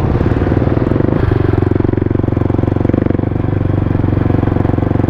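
Kawasaki D-Tracker 250X's single-cylinder four-stroke engine with a Yoshimura RS-2 slip-on exhaust, running steadily at low revs as the bike pulls away and rides on. It is heard through a mic inside the rider's helmet.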